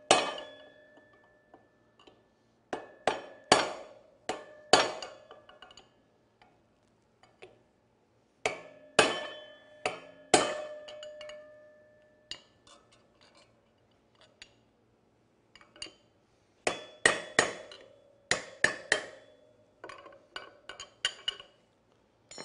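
Hammer blows on a brass punch driving a sealed wheel bearing out of a motorcycle's aluminium wheel hub: sharp metallic taps, each ringing briefly, in groups of two to four with pauses between.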